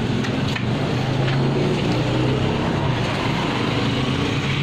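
A steady, low mechanical drone of a running machine or engine, unbroken throughout.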